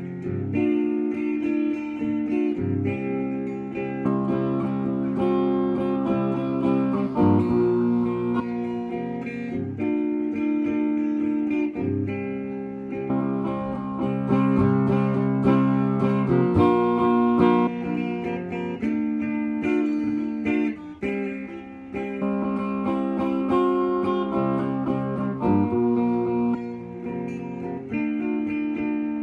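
Instrumental acoustic guitar music, chords strummed and plucked, changing every second or two.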